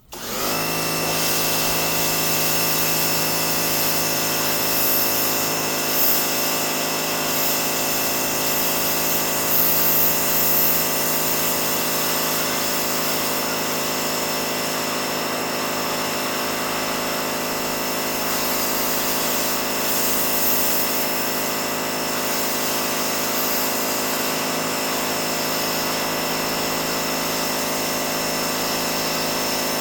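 Pressure washer running steadily, a motor and pump whine with water spray hiss. It spins up quickly at the start and winds down near the end.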